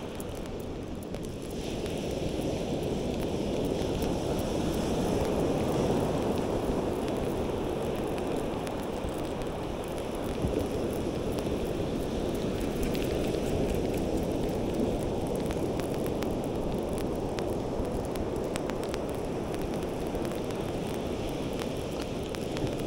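Wind buffeting the microphone over the steady rush of surf washing up a beach, swelling and easing slowly, with a few faint clicks.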